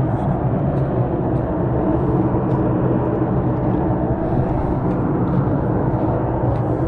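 A steady low droning rumble with a deep, even hum, unbroken throughout. It is an unexplained sound that the listener takes to come from jets at a nearby air force base, though it doesn't sound like any jet he has heard.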